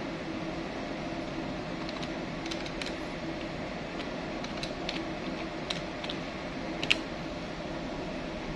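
Keys of an electronic desk calculator clicking as numbers are entered: a string of irregular clicks between about two and seven seconds in, the last one the loudest. A steady machinery hum runs underneath.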